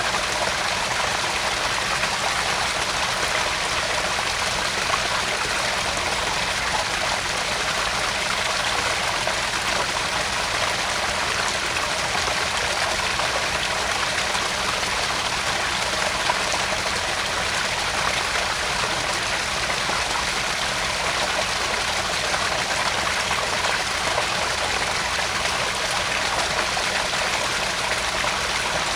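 Small garden-pond waterfall: water splashing and trickling steadily into the pond.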